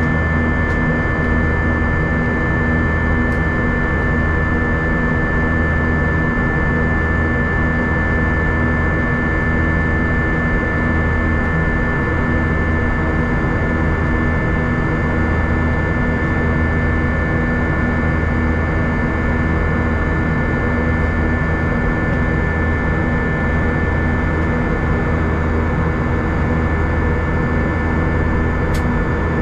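Airbus A320 cabin noise in flight, heard from a front window seat: a steady rush of jet engines and airflow with a deep hum and a thin, steady high-pitched whine, unchanging throughout.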